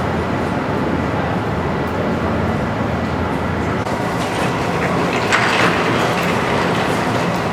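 A train running with a steady rumble and a low engine hum, and a brief higher-pitched sound about five and a half seconds in.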